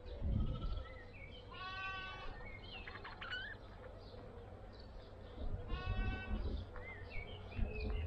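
Budgerigar chirping: short rising and falling chirps, with two longer buzzy calls, one about two seconds in and one about six seconds in. Wind rumbles on the microphone at the start and again near the end.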